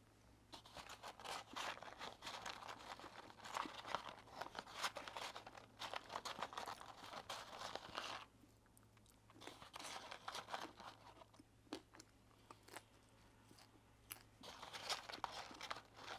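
Close-miked chewing of McDonald's french fries, in bursts of crunchy mouth noises with short pauses, along with light rustling of the cardboard fry carton as fries are picked out.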